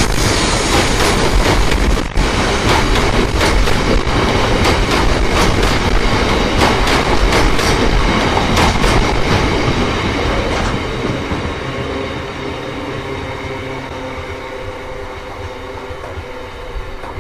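Loaded bogie hopper wagons of a stone train rolling past, the wheels clacking over the rails in a rapid string of sharp clicks over a steady rumble. About ten seconds in the clicking thins out and the rumble fades away as the last wagons pass and the train draws off.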